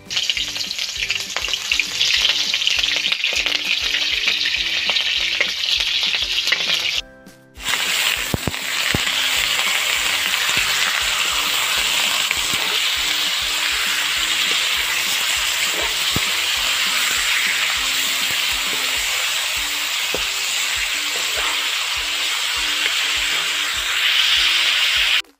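Chunks of meat sizzling as they fry in hot oil in a black iron wok, stirred with a spatula, with a short break about seven seconds in. Faint background music with a steady beat underneath.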